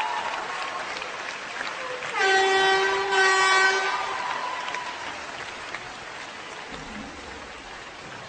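Arena crowd applauding and cheering, the applause slowly fading. About two seconds in, a loud steady horn blast lasts nearly two seconds, in two pulses.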